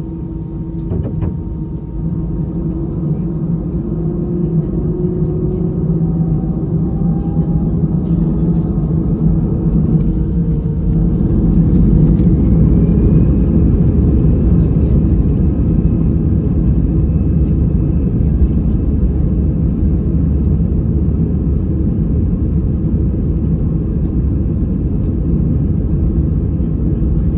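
Airbus A319 take-off roll heard from inside the cabin. The engines spool up to take-off thrust, their whine rising in pitch over the first dozen seconds and then holding steady, over a loud rumble that grows with speed.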